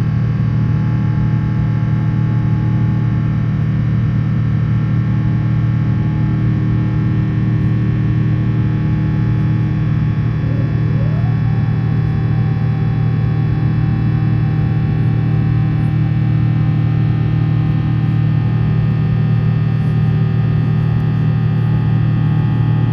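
Steady, loud drone of the Airbus A350-900ULR's Rolls-Royce Trent XWB jet engines heard inside the cabin, with many steady whining tones over a low rumble. About ten seconds in, one tone glides upward and then holds.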